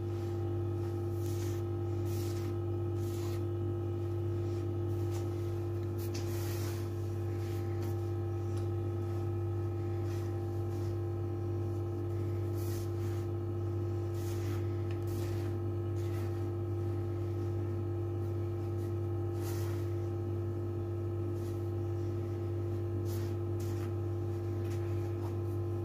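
A steady low hum, with faint soft rustles here and there from hands working a dry sellou mixture of ground toasted almonds, sesame and flour in a wide bowl.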